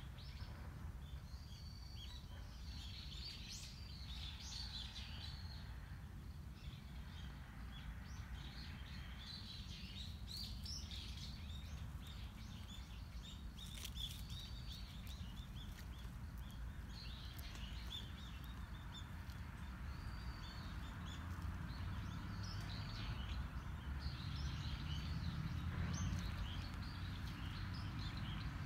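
Small birds chirping in short, scattered calls, over a steady low background rumble that grows slightly louder in the second half.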